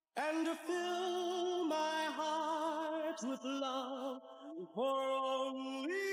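Background music: a sung melody of long held notes, some with vibrato, stepping from note to note.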